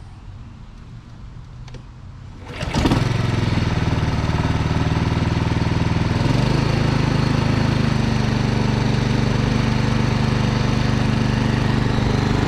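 Small lawn mower engine cold-starting, its first run after a carburetor overhaul that cleared a partly blocked main jet and set the pilot mixture a quarter turn richer. It catches suddenly about two and a half seconds in and runs steadily, its speed stepping up slightly around six seconds in.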